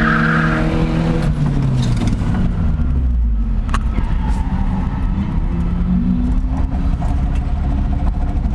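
Toyota Tacoma's stock 2RZ four-cylinder engine heard from inside the cab: revs falling off over the first second or so, then running low and steady with a sharp click midway, and revs rising again about six seconds in.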